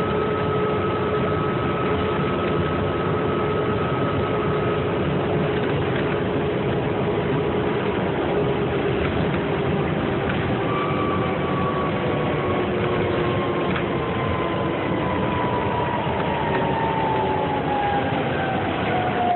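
Cabin noise inside a 2008 New Flyer C40LFR transit bus at freeway speed: its Cummins Westport ISL-G natural-gas engine and Allison transmission running steadily under a constant rush of road and tyre noise. A faint whine slowly falls in pitch through the second half.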